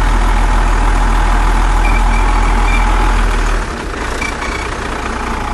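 Swab truck's engine running steadily with a deep low hum; about three and a half seconds in the low hum drops away and it runs quieter. A few brief high chirps sound over it.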